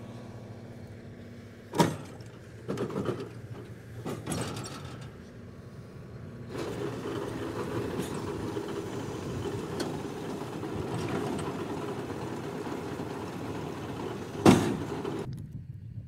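Gehl 1475 round baler dumping a finished bale of alfalfa, with the tractor running. A few knocks come in the first seconds, a steady hydraulic-and-engine sound sets in about halfway through, and the tailgate shuts with one loud clunk near the end.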